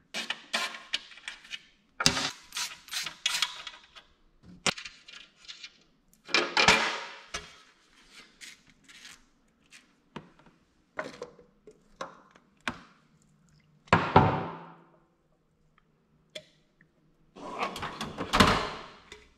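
Metal hand tools knocking, clicking and clinking on motorcycle engine hardware during skid-plate removal and oil draining, in separate short strikes and clatters. Near the end, hand tools clatter while a toolbox drawer is rummaged through.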